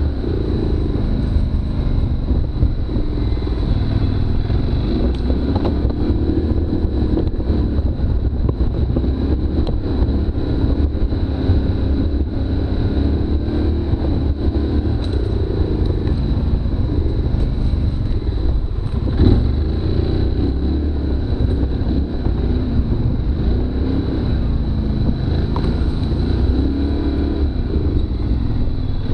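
Polaris Sportsman ATV engine running hard from the rider's seat, the revs rising and falling again and again as the quad is driven over rough ground, with a sharp knock about nineteen seconds in.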